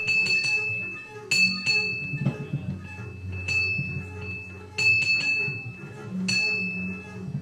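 Live improvised trio of double bass, guitar and drums: irregular ringing, bell-like metallic strikes over low double-bass notes.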